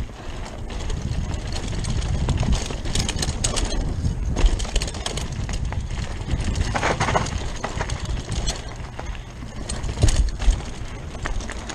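Rockrider 540S mountain bike descending a dirt forest trail at speed: wind buffeting the camera's microphone, tyres rolling over dirt and roots, and the bike's chain and frame rattling over the bumps. Heavy thumps come about four and a half and about ten seconds in, as the bike hits bumps.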